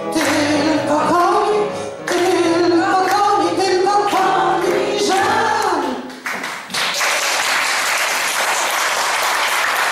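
A woman sings the closing line of a song over backing music, and the song ends about six seconds in. Then the audience applauds.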